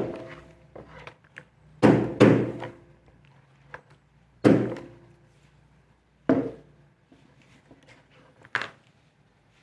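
A mallet striking a leather hole punch to drive a hole through a leather strap. The knocks are sharp, each with a short ring: a quick pair about two seconds in, then single blows every couple of seconds, the last one lighter.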